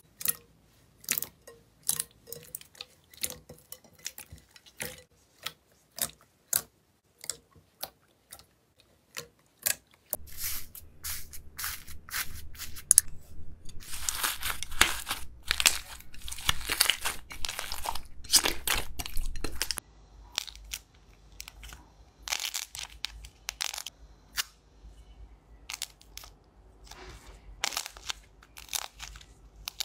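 Hands stretching, folding and squeezing slime, making sharp pops and crackles. The pops come separately about twice a second at first, then run together into dense crackling from about ten to twenty seconds in, then thin out again.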